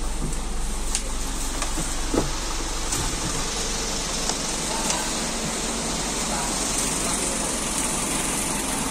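Medium-size intercity bus running, heard as a steady, even noise with a low hum.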